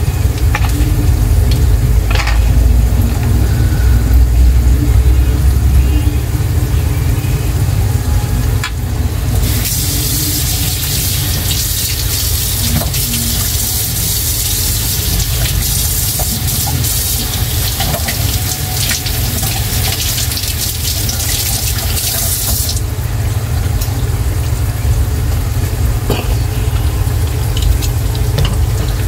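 Hot grease frying with a few scattered pops. In the middle a kitchen tap runs for about thirteen seconds, turned on and off suddenly. A low steady rumble sits underneath.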